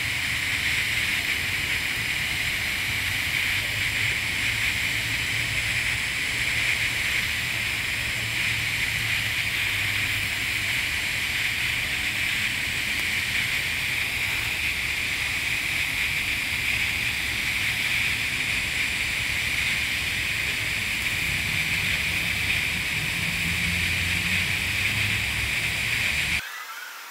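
TIG welding arc on carbon steel pipe during the hot pass at 130 amps: a steady hiss that cuts off shortly before the end.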